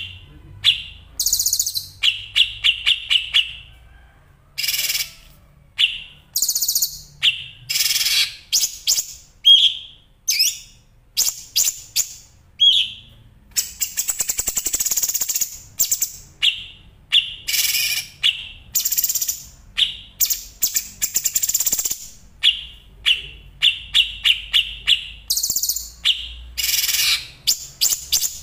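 Masteran recording of caged songbirds (cucak cungkok, domestic canary and ciblek, the bar-winged prinia) singing in dense, fast "roll speed" bursts: short phrases of rapid repeated trill notes and high chattering runs following one another with brief gaps.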